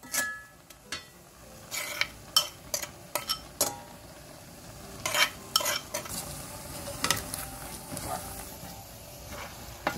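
Metal spoon scraping and knocking against a bowl as thick chili sauce is scooped into a wok of boiling water, a string of sharp clicks and taps over the steady bubbling of the water.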